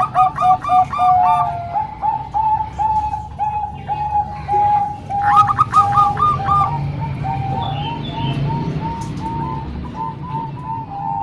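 Several zebra doves (perkutut) cooing in overlapping rhythmic phrases: a steady run of short coo notes, with a second, higher-pitched bird joining at the start and again about five seconds in.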